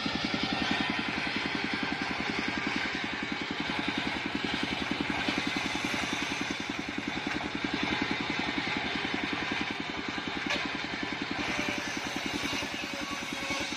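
Engine of a portable circular-saw rig running steadily with a fast, even pulse, driving the large circular blade as it rips a long sengon timber lengthwise.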